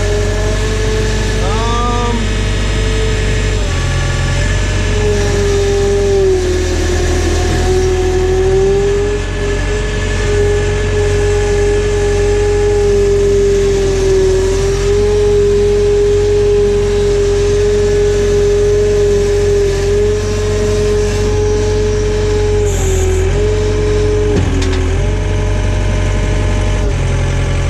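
John Deere 317 tractor engine running steadily under a Davis backhoe, with a strong steady whine that dips in pitch briefly a few times.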